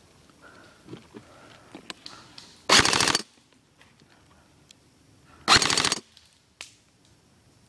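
Airsoft electric rifle, a G&G GR16, firing two short full-auto bursts of about half a second each, the second roughly two and a half seconds after the first, with the motor-driven rattle of rapid shots.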